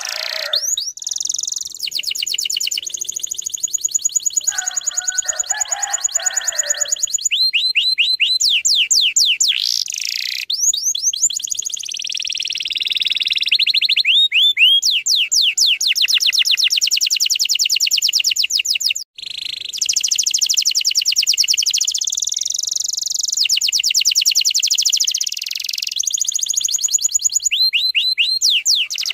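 Domestic canary singing in long, rapid trills of fast repeated high notes, one trill passage giving way to the next every few seconds, with a brief break near the middle.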